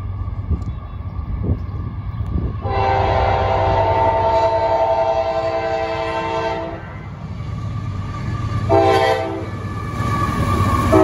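CSX freight diesel locomotive's multi-chime air horn: one long blast of about four seconds, a short blast about two seconds later, and another long blast starting near the end. Underneath runs the steady low sound of the approaching locomotives.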